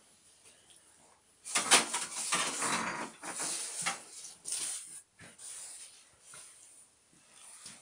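Pit bull terrier, muzzled with a bandage and still sedated after ear cropping, breathing noisily with a wheeze. The breaths are loudest over a few seconds starting about a second and a half in, then come fainter and separate.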